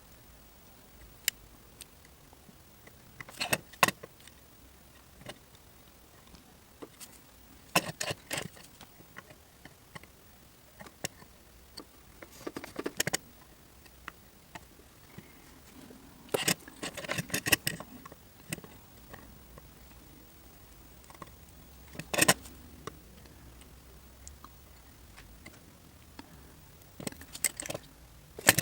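Small metal hand tools and a circuit board being handled on a workbench during soldering: clusters of light clicks and short metallic clinks every few seconds, between quiet gaps.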